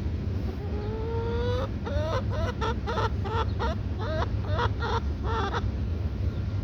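A chicken calling: one drawn-out note that rises slowly, then a run of about ten short, quick clucks, over a steady low rumble.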